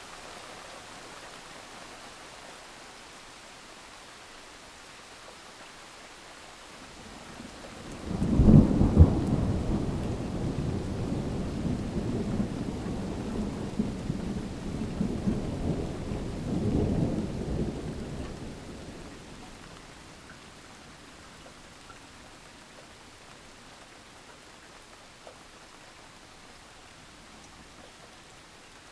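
Steady rain falling, with a long roll of thunder that cracks in sharply about a third of the way through, rumbles on for about ten seconds with a second swell, then dies away back to the rain.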